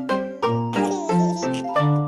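Instrumental children's song music, the intro before the singing starts: a tune of short pitched notes over chords, the notes changing several times a second.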